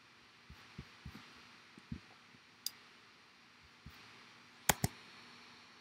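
Quiet room tone with scattered soft taps and clicks, then a sharp double click a little under five seconds in: computer mouse clicks advancing presentation slides.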